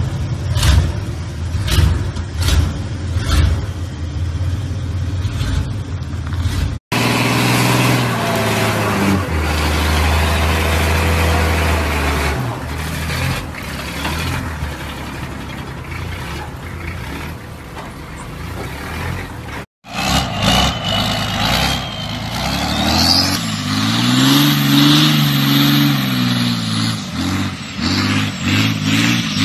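Pickup truck engines running and revving in three short clips. First a lifted Ford pickup's engine with sharp pulses about twice a second. Then an engine revving up with a rising note, and finally a lowered Chevy pickup's engine climbing and falling in pitch as it is driven across a field.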